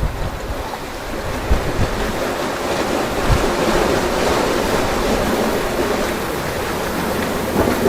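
Sea waves washing, with wind buffeting the microphone in irregular low gusts.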